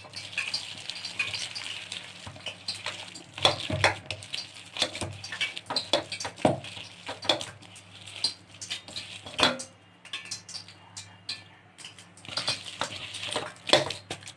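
Gram-flour and spinach pakora batter being mixed in a bowl after water is added: irregular clinks and knocks against the bowl, easing off briefly about two-thirds of the way through.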